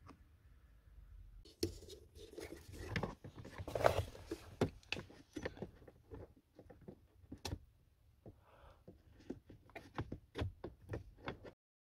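Hands working a fabric-taped wiring harness and plastic parts under a car dashboard: scattered clicks, light knocks and rustling, thickest about four seconds in and in a quick run of clicks near the end, then cutting off suddenly.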